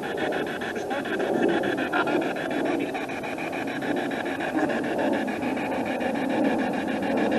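SB7 spirit box sweeping through radio stations: steady static chopped into short pulses about ten times a second.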